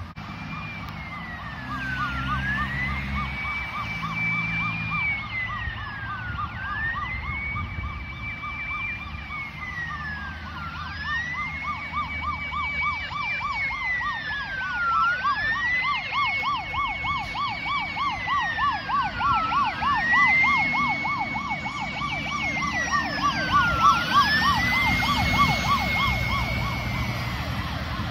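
Fire Rescue Victoria fire truck sirens on an emergency run: a slow wail that rises, holds and falls about every four seconds sounds together with a fast warbling tone. They grow louder as a pumper drives past, its engine rumbling underneath.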